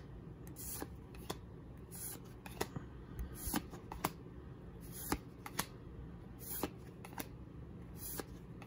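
Pokémon trading cards being slid one at a time from the front of a hand-held stack to the back, each move a short papery flick, about one to two a second.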